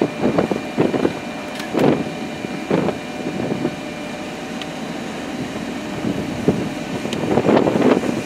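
Storm wind gusting in uneven surges, about one each second, over a steady rushing background with a faint steady hum.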